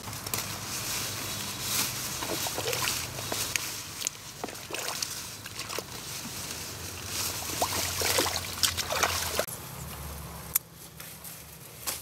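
Rubber boots sloshing and splashing through shallow muddy water in a flooded furrow, stopping about two-thirds of the way through.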